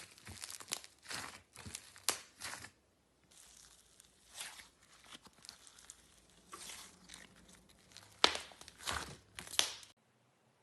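Slime being squeezed and pulled by hand, giving irregular crackling, crunching pops, the loudest a little past eight seconds and just before it cuts off about ten seconds in.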